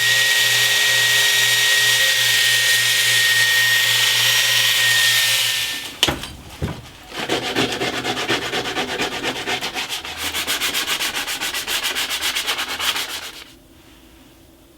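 Sanding a wooden knife handle to clean off dried glue and bring the pins flush. For the first six seconds the sanding is steady, with a thin whine and a low hum under it. A click follows, then quick, even back-and-forth rubbing strokes that stop near the end.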